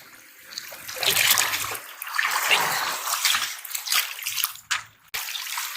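Shallow seawater splashing and trickling in uneven surges, with a brief break near the end.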